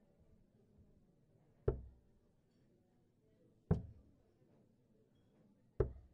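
Three steel-tip darts striking a Winmau Blade 4 sisal bristle dartboard, one sharp thud each about two seconds apart.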